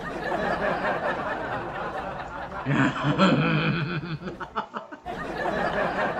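Laughter: chuckling and snickering, with a stronger burst of laughing about three seconds in.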